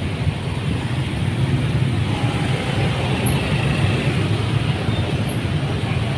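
Dense motorbike and scooter traffic crawling in a jam: many small engines running together in a steady low rumble of traffic.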